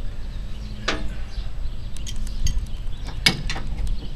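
A wrench clinking against a nut and bolt as the nut is worked loose: a few sharp metallic clicks, the loudest about a second in and a little after three seconds, over a steady low rumble.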